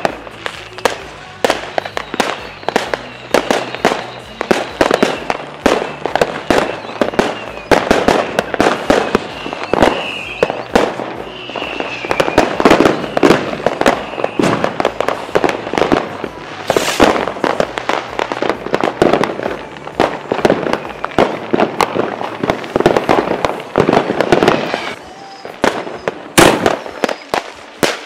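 Fireworks going off in quick succession: a dense run of sharp bangs and crackles from bursting aerial shells, with one especially loud bang near the end.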